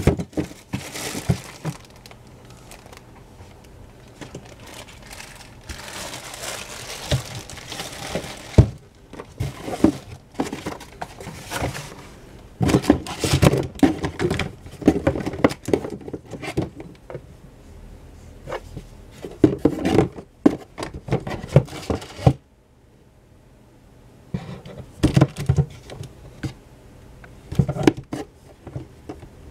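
Plastic packaging crinkling and rustling as a hand rummages through cosmetics bottles and tubes in a cardboard box, with short knocks of the plastic bottles against each other and the box.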